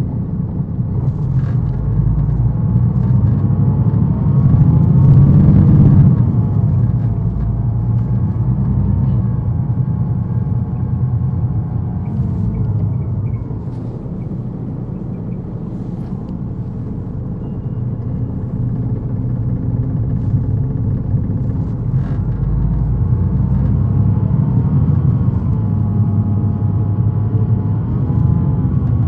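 Detroit Diesel Series 60 diesel engine of a 2001 MCI D4000 coach, heard on board from the rear seats, running under load. Its pitch climbs as the bus accelerates, loudest about five seconds in. It eases off to a quieter rumble around the middle, then climbs again near the end.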